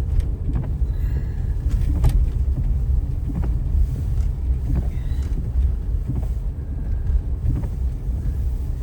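Car cabin road noise while driving on a snow-covered road: a steady low rumble of tyres and engine, with a few light clicks.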